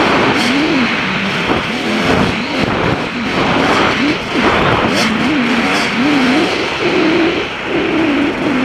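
KTM 250 EXC two-stroke dirt bike engine pulling along a trail, its note rising and falling quickly as the throttle is worked, over steady wind noise on the helmet microphone.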